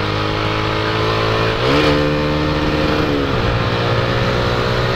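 Motorcycle engine running under way, with wind rush: its note climbs in pitch as the throttle opens about a second and a half in, holds, then drops back partway about two seconds later.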